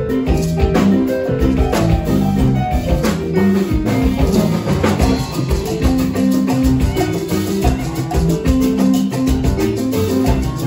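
Live band playing an instrumental groove without vocals: drum kit and keyboards with shaken hand percussion over a steady beat.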